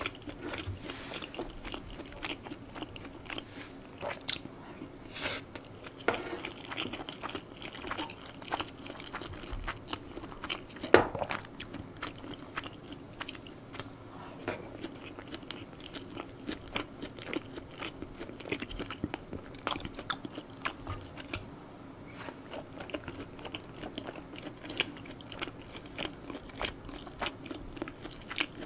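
Close-miked chewing and biting of stir-fried spicy pork (jeyuk-bokkeum) and rice: many short wet smacks and crunches in an irregular rhythm, with one sharper, louder click about eleven seconds in.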